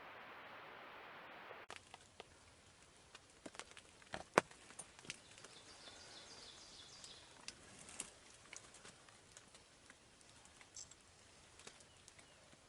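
A steady hiss cuts off suddenly before two seconds in. After it comes quiet woodland ambience with scattered light taps and drips, like rain falling on leaves. A songbird sings a short series of high, quick notes in the middle.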